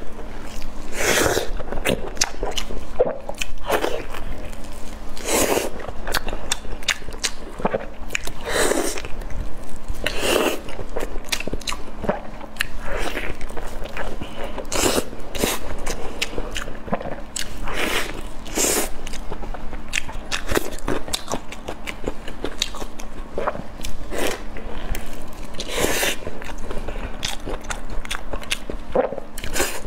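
Close-miked eating sounds: wet biting, chewing and lip smacking on soft, sauce-dipped food, in irregular bursts every second or so.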